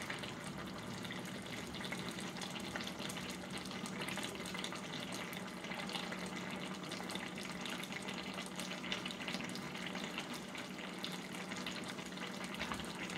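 Chinese potato (koorkka) masala curry simmering in an open pan, its thin masala gravy bubbling and spluttering steadily as the water reduces.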